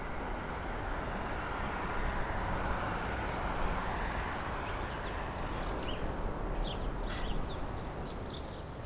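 Outdoor evening ambience: a steady rushing noise, with a few short bird chirps from about halfway through.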